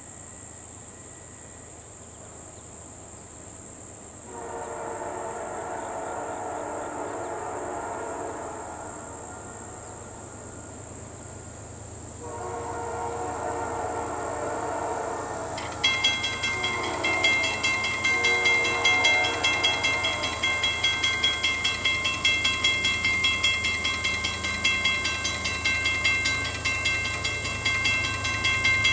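Approaching CN ES44DC diesel locomotive's horn sounding two long blasts for the grade crossing, then the crossing's warning bell begins ringing rapidly and steadily as the signals activate and the gates lower.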